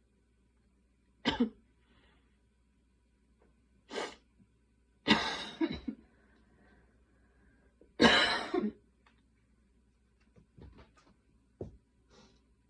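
A person coughing in separate bouts during a night-time coughing fit. There is a short double cough about a second in, another cough around four seconds, then two longer, louder coughs around five and eight seconds, and a few short, quieter coughs near the end.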